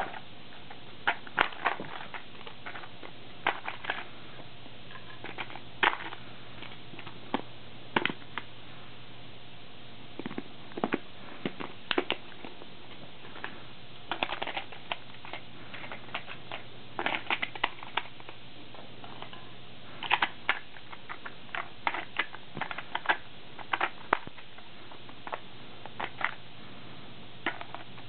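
Dye Rotor paintball hopper being taken apart and put back together by hand: irregular clicks, snaps and knocks of its plastic shell and parts, in clusters, over a faint steady hum.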